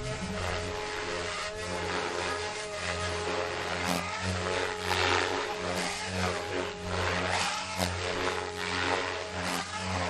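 SAB Goblin 500 electric RC helicopter flying aerobatics: a motor and rotor whine that swings up and down in loudness, with several short loud swells of noise.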